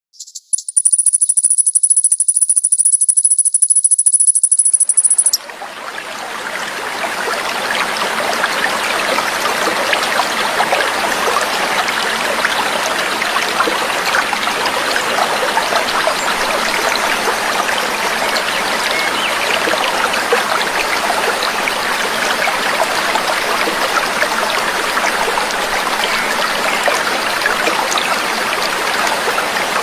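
Trickling water (gemericik air) running steadily, fading in about five seconds in after a high, steady buzzing trill cuts off abruptly.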